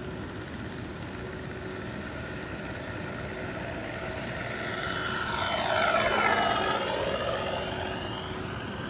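Flightline Corsair F4U-1A electric RC warbird flying past: the propeller and the onboard speaker playing a simulated engine sound grow louder to a peak about six seconds in, with the pitch sweeping as it passes, then fade away.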